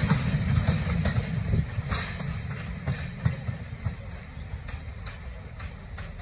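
Train rumbling past and fading away, with a few sharp clicks as it recedes.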